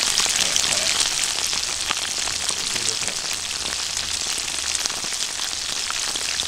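Karaage (potato-starch-coated chicken thigh pieces) shallow-frying in hot oil in a frying pan: a steady, dense sizzle crowded with small pops and crackles.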